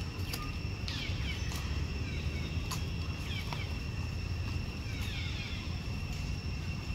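Outdoor forest ambience: a steady high-pitched drone, short falling chirps now and then, and a few sharp clicks over a low rumble.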